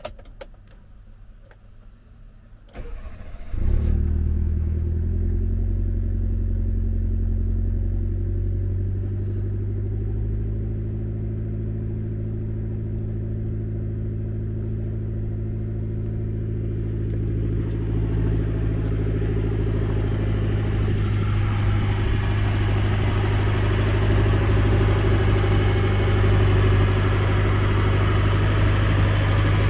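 Cold start of a 1995 Mitsubishi Pajero Mini VR-I's turbocharged four-cylinder engine: a short crank about three seconds in, then it catches at once and settles into a steady fast idle of nearly 2,000 rpm. In the second half it sounds closer, with more high-pitched noise over the idle.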